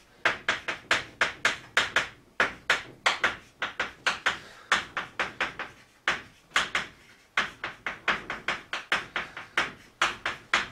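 Chalk striking and scraping on a chalkboard as characters are written by hand. There are many short, sharp strokes, several a second, coming in quick runs with brief pauses between them.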